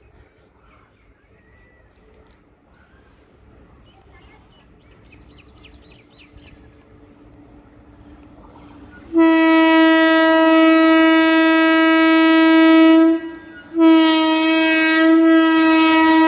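Horn of a WAG-5 electric freight locomotive coming through at speed, starting about nine seconds in: one long blast of about four seconds, a brief break, then a second long blast as the locomotive draws close.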